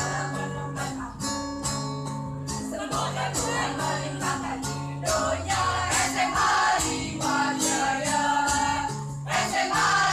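Mixed school choir of girls and boys singing together, accompanied by an acoustic guitar, over a steady rhythmic beat.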